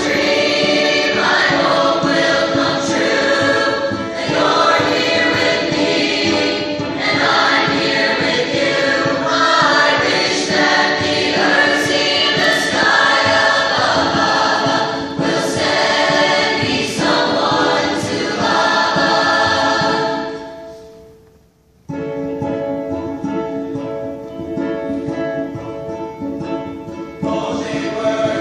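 Large mixed choir singing together. About three-quarters of the way through, the singing fades away and then cuts back in abruptly a second later, a little quieter than before.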